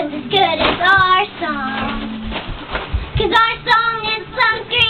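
A young girl singing solo, her voice rising and falling through sung phrases.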